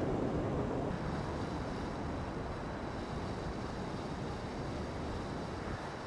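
Steady outdoor city noise: a low rumble of traffic with wind on the microphone, easing a little about a second in.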